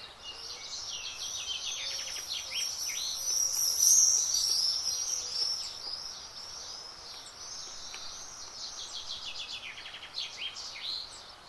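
Wild songbirds singing: fast runs of many rapid high notes, loudest about four seconds in, dying down, then picking up again near the end.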